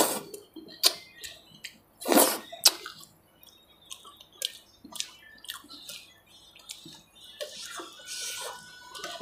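Close-miked eating sounds: wet lip smacks and chewing, with sticky squelches as fingers pick through a fish curry in mustard gravy. The smacks and clicks come irregularly, the loudest at the very start and about two seconds in.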